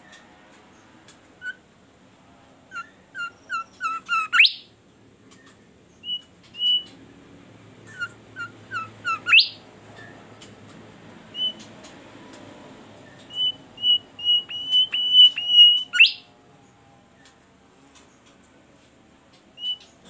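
Caged bimoli songbird singing in runs of short chirped notes. Three phrases end in a quick upward-sweeping whistle, about four, nine and sixteen seconds in, and the last is a fast string of repeated notes.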